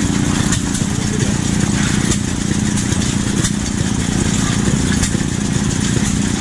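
Small antique stationary gas engine running steadily as it drives a can crusher, with a few light knocks over the low, fast engine rhythm.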